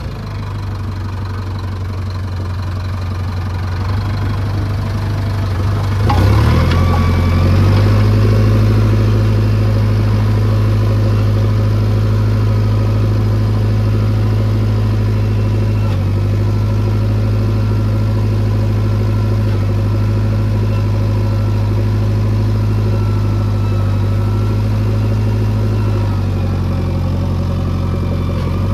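Heavy diesel engine getting louder over the first few seconds and revving up about six seconds in, then holding steady at the higher revs.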